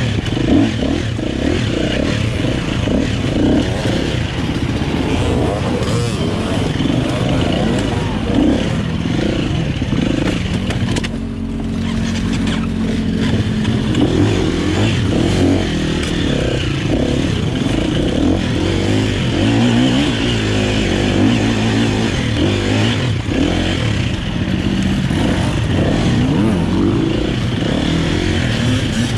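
KTM EXC-F 250 four-stroke single-cylinder dirt bike engine heard up close on board, revving up and down under changing throttle over rough ground. A little before halfway it drops for a few seconds to a steadier, lower note, then picks up again.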